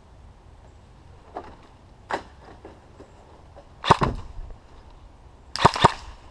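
Airsoft gun shots: several single sharp cracks, two faint ones first, then a loud close pair about four seconds in and another loud pair near the end.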